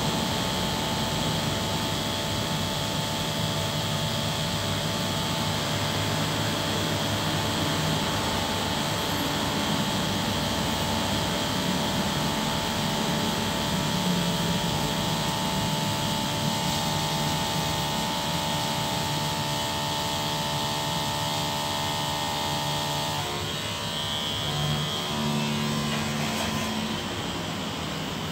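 Motorised spray pump running steadily, feeding a high-pressure spray hose, with a steady humming tone; about 23 seconds in the tone breaks up and shifts.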